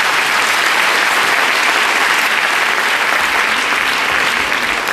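Audience applauding steadily at the end of a gymnastics floor routine.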